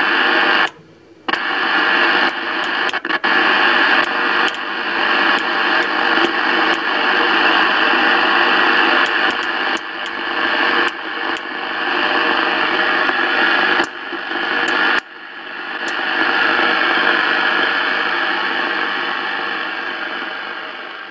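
Zodiac B-5024 23-channel AM CB radio giving out loud steady static hiss from its speaker while the channel selector is turned, with sharp clicks at the channel changes and a few brief dropouts. The hiss swells again after about fifteen seconds and fades away at the end.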